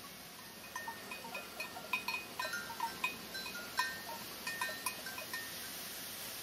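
Bells clinking irregularly, many short ringing strikes at several pitches, over a steady hiss; the clinking starts just under a second in and dies away about a second before the end.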